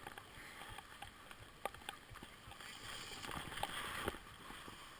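Skis sliding over packed snow: a faint scraping hiss that swells a little around three to four seconds in, with a few sharp clicks.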